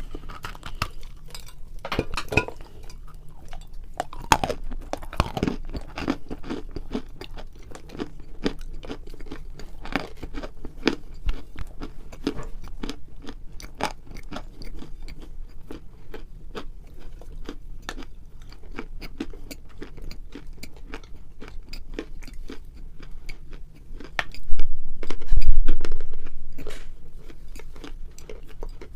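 Crunching and chewing of crumbly Bashkir edible clay: a dense run of crisp, close crunches. About 25 seconds in there is a loud low rumble lasting a couple of seconds.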